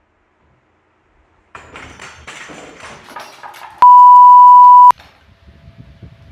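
A censor bleep: a loud, steady, pure beep lasting about a second that starts and stops abruptly, about four seconds in. Before it, from about a second and a half in, a stretch of quieter knocking and rattling.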